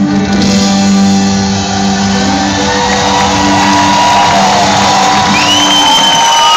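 A country band's fiddle-led national anthem closes on a long held chord that ends about six seconds in, while a large crowd starts cheering and shouting over it. A shrill whistle from the crowd rises and falls near the end.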